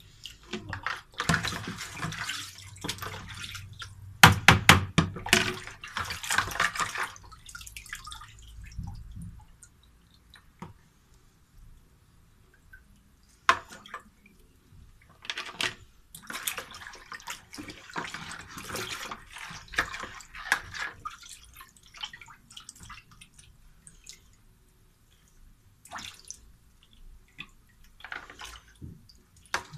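Skinned rabbit carcasses being rinsed by hand in a basin of water: water sloshing and splashing in bursts with quieter pauses between, and a few sharp knocks.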